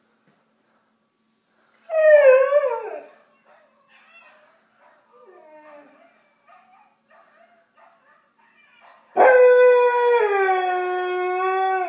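Husky howling: a short, wavering howl falling in pitch about two seconds in, then a long, loud howl starting about nine seconds in that drops in pitch and then holds steady. A few faint sounds come in between.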